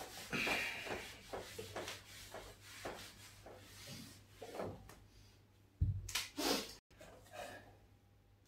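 A whiteboard being wiped clean in quick, irregular rubbing strokes, faint. About six seconds in there is a short knock and scrape.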